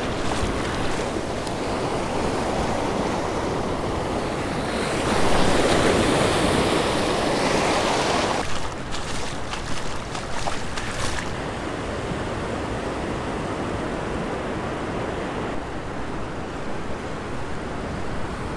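Gulf surf breaking and washing up the beach, with wind buffeting the microphone; a louder rush of surf comes about five seconds in and eases a few seconds later.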